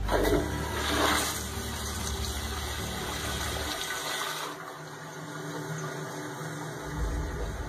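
Pressure-assist toilet being flushed by its push-button: a sudden, loud rush of water lasting about four seconds, then fading to a quieter steady hiss.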